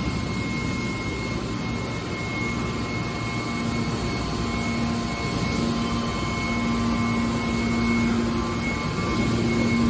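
Hydraulic scrap metal car baler running: a steady machine drone with whining tones, a lower tone growing stronger about a third of the way in.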